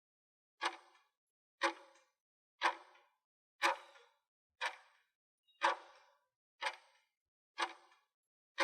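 Clock-tick sound effect ticking once a second, a countdown while the quiz question waits for its answer.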